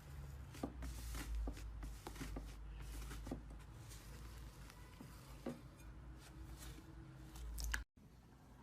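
Slime being squeezed and handled: faint soft squishes with small clicks and pops, over a low steady hum. The sound cuts out abruptly near the end.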